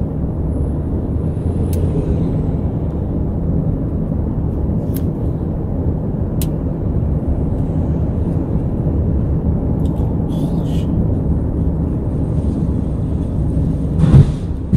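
Steady low road and tyre rumble heard from inside a car moving at highway speed, with a short loud burst of sound near the end.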